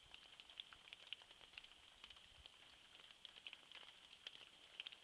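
Faint night ambience: a steady high-pitched hiss with many small, irregular ticks.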